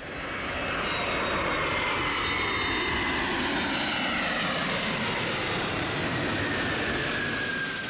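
Antonov An-225 Mriya's six turbofan engines running as the aircraft passes low overhead, a steady jet noise with a whine that slowly falls in pitch. It fades in at the start and cuts off right at the end.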